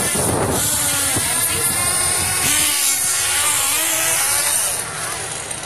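Radio-controlled race cars running, their small motors buzzing with a pitch that rises and falls as they speed up and slow down, over a steady hiss. The sound drops somewhat about five seconds in.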